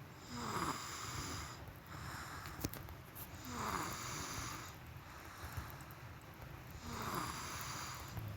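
A person snoring in deep sleep, three snores about three seconds apart, each sliding down in pitch.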